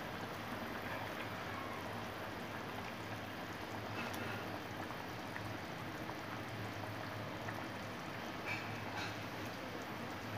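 Fish-head curry boiling in a pot: a steady bubbling hiss, with a few faint knocks about four seconds in and near the end as pieces of salmon head are dropped in.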